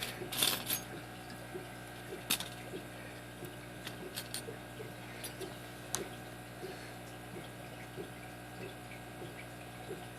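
Sharp metallic clicks and light scraping of a lock pick and tension wrench working the pin stack of a five-pin brass padlock with mushroom security pins, over a steady low hum and a faint regular ticking.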